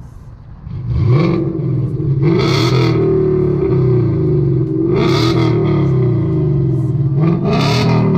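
2018 Mustang GT's 5.0 V8 revved from idle about a second in and held high with repeated surges, to about 5,000 rpm, through stock mufflers with an X-pipe and resonator delete.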